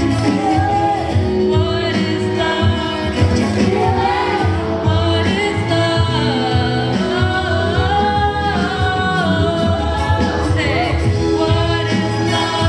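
A woman singing a solo through a microphone over musical accompaniment, holding long notes with a wavering vibrato.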